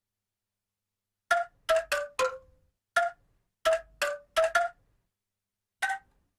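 Bamboo angklung played with the centok technique: about ten short, separate pitched notes, each dying away quickly rather than shaken into a sustained tremolo. The notes form a small tune, opening with a quick run of four stepping down in pitch.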